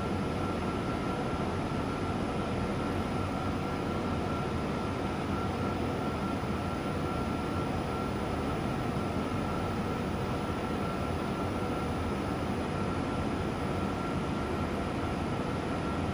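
Wave soldering machine running: a steady mechanical hum and rush with a thin, constant high whine, unchanged throughout.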